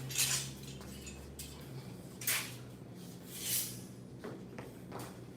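Pair of kung fu butterfly knives swished and clinking as they are worked through a form, a few short swishes spaced about a second apart, over a steady low hum.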